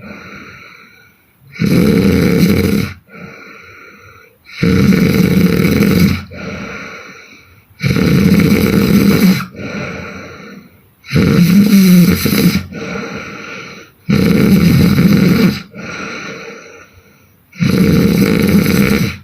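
A sleeping woman snoring loudly and regularly: six heavy snores about three seconds apart, each followed by a softer breath out.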